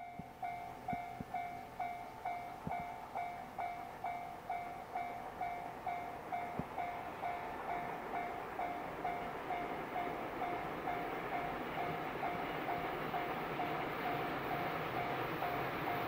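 Japanese level crossing warning bell ringing steadily at about two dings a second. Under it, a freight train hauled by an EF210 electric locomotive approaches, its running noise growing louder from about halfway through.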